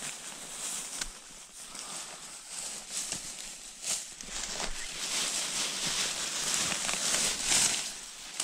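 Close rustling of dry leaves and undergrowth as hands pull and knife-cut clusters of honey mushrooms at their base, with a few sharp snaps or clicks; the rustling grows louder in the second half.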